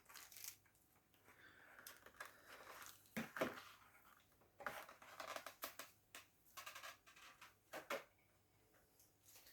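Faint, scattered taps, clicks and rustles of a model locomotive's box and plastic packaging being handled, with two louder knocks, about three seconds in and near the end.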